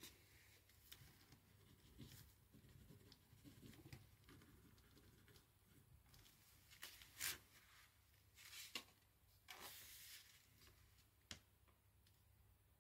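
Near silence, with a few brief faint paper rustles in the second half and a light tap near the end: a book being leafed through and written in by hand.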